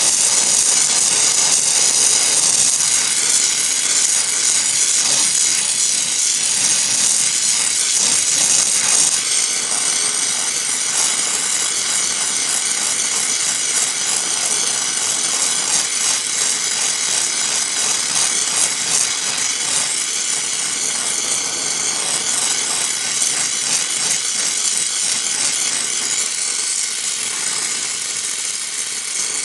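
Gas torch flame hissing steadily as it heats the rim of an aluminium alloy wheel, a little quieter from about nine seconds in.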